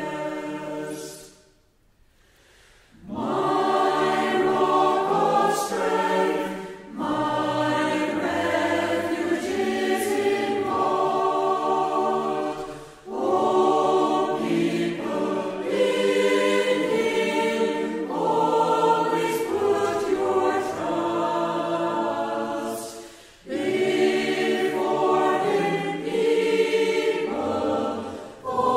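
A group of voices singing a metrical psalm unaccompanied, line by line. The singing stops briefly about two seconds in, then goes on with short breaths between the lines.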